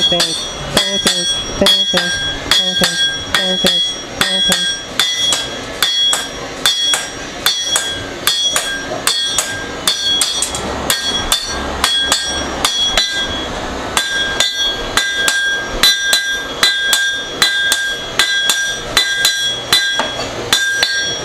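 Blacksmith forging steel: a hammer striking the work on an anvil in a steady rhythm of about two to three blows a second, each blow ringing with a bright metallic tone.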